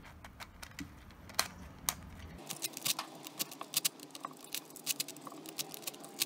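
Black PLA 3D-printed Tetrahexaminx twisty puzzle being scrambled by hand: its plastic pieces click as the faces are turned. A few scattered clicks at first, then a fast, dense clatter of clicks from about two and a half seconds in, where the footage is sped up fourfold.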